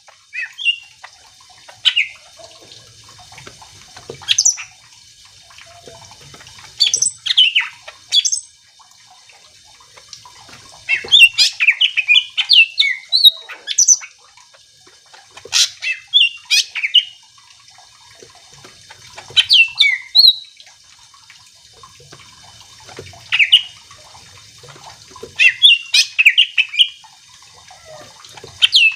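A cucak ijo (greater green leafbird) singing in vigorous 'gacor' form: bursts of quick, shrill, gliding notes every few seconds with short pauses between them, and two longer chattering phrases.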